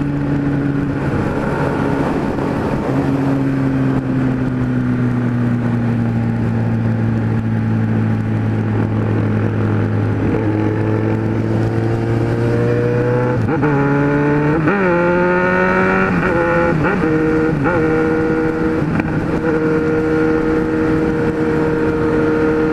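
Kawasaki Z1000 inline-four engine at highway speed, heard from the saddle over wind rush. The revs ease down slowly at first. About halfway through they climb in a few quick steps with short dips between them, then hold steady at a higher pitch.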